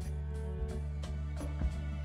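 Background music: sustained low notes with a light, regular beat.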